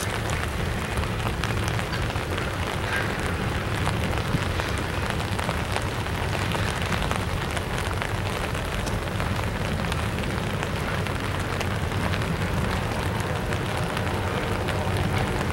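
Double-stack intermodal container train rolling very slowly across a steel girder bridge: a steady low rumble of the cars with an even hiss over it.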